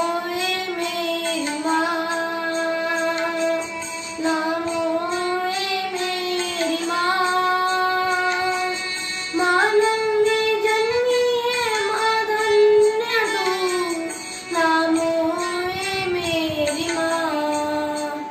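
A boy singing a Hindi Marian devotional song solo, gliding between long held notes.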